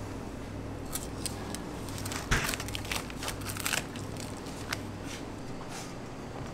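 Long knife slicing through a skin-on block of bluefin tuna loin on a plastic cutting board: a run of short crackling, tearing sounds, with a sharp knock about two seconds in, the loudest sound, then wet rustling as the cut piece is lifted and handled. A steady low hum runs underneath.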